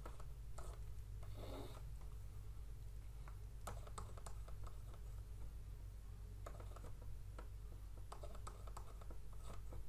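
Stylus tapping and scratching on a drawing tablet as an equation is handwritten: faint, irregular clicks in small clusters, over a steady low electrical hum.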